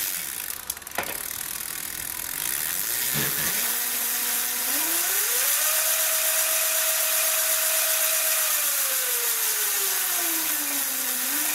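Razor MX350's electric motor and chain drive spinning the raised rear wheel as the variable-speed throttle is worked through its full range. A few clicks come first, then the whine climbs in steps to full speed, holds steady for a few seconds, and winds down slowly, with a steady mechanical rattle throughout.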